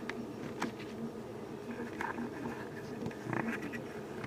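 Steady low buzzing hum of background noise, with a few faint light clicks as the plastic model kit is handled.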